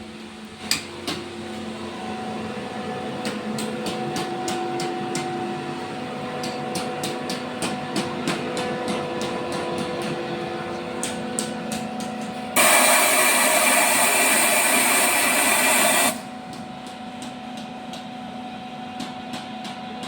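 Machinery running with a steady hum and many rapid, irregular sharp clicks. About two-thirds of the way through comes a loud hiss of compressed air lasting about three and a half seconds, which then cuts off.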